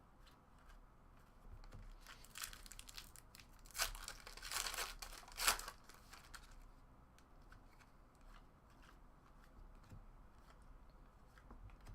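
Trading-card packaging and cards being handled: soft crinkling and tearing-like rasps, loudest in a cluster between about two and six seconds in, then only faint handling.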